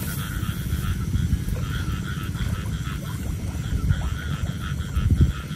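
Frogs croaking in a steady chorus over a low rumble.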